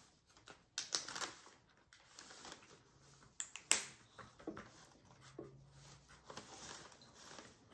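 Paintbrush working paint on a plastic palette: faint scattered taps and clicks of the brush against the palette, with soft scraping as the colour is mixed.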